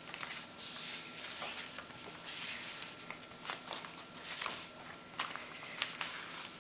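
Paper pages, tags and cards of a handmade hardcover junk journal rustling as they are handled and turned, in a run of short soft swishes with a few light taps.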